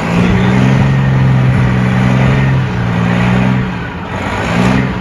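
A heavy vehicle's engine running hard under load during a chain tow of a vehicle stuck in deep snow. It holds steady, eases off briefly near the end, then picks up again.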